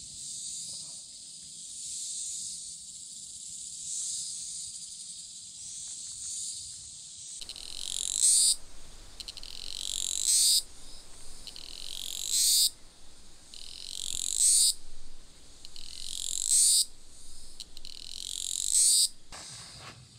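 Cicadas singing: a steady high buzzing chorus, then from about seven seconds in a louder call repeats six times, about every two seconds, each one swelling louder and cutting off suddenly.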